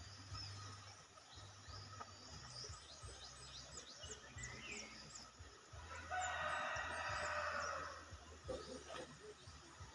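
Birds calling: a run of quick, high falling chirps, then one loud drawn-out call lasting about two seconds past the middle.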